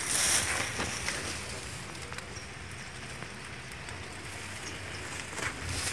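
A short burst of rustling as the phone brushes through leaves and brush, then a steady faint outdoor hiss with a few small clicks.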